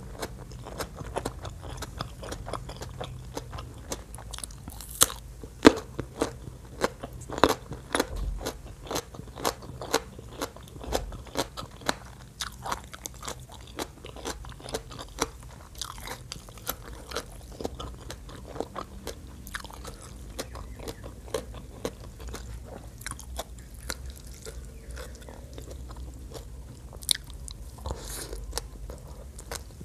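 Close-miked crunchy chewing of Thai green papaya salad with raw vegetables. The crunches come thick and loud in the first half, thin out to softer chewing later, and a sharp crunch comes near the end.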